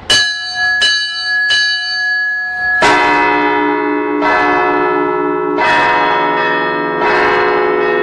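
A Russian Orthodox church bell peal (zvon) on hand-rung bells starts: three single strikes on the small chiming bells, then about three seconds in a deeper bell, worked by a foot pedal, joins with a low humming tone. The bells then keep striking in a steady rhythm of roughly one stroke every second and a half, with quicker chime strokes near the end.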